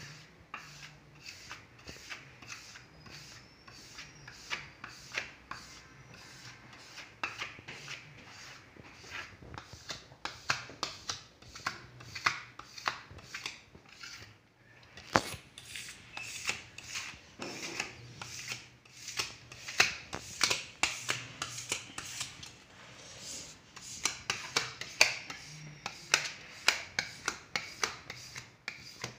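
Plastic squeegee scraping over holographic rear-projection film on a wet panel, in many short, quick strokes that press the water out from under the film.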